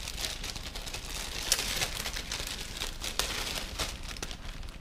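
Clear plastic bag crinkling and rustling as it is handled and slid off a boxed electronic unit, with many sharp crackles.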